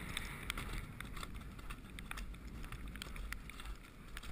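Wind rushing over a rider-worn camera's microphone as a horse canters across turf, with a low steady rumble. Irregular clicks and thuds come about two or three a second from the horse's hoofbeats and tack.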